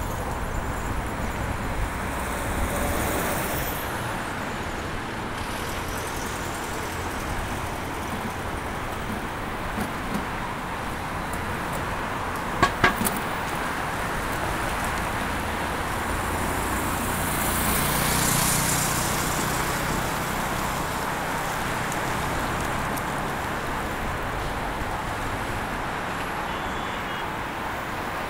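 City street traffic: a steady rush of cars passing. There are two sharp clicks about halfway through, and one vehicle passes louder about two-thirds of the way in.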